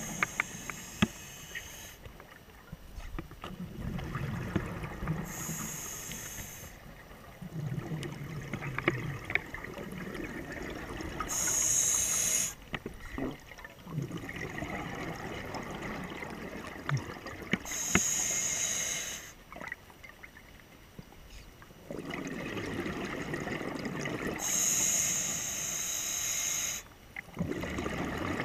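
A scuba diver breathing through a regulator underwater: a hiss on each inhale, followed by the rumble of exhaled bubbles. The breaths repeat about every six seconds, five times.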